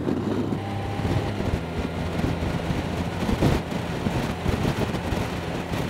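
Honda Gold Wing's flat-six engine running steadily at road speed, under wind rushing over the microphone and tyre noise on a wet road.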